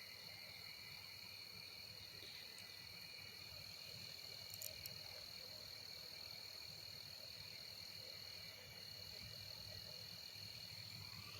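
Faint, steady night chorus of crickets and frogs: a continuous high trill with a lower trilling band beneath it.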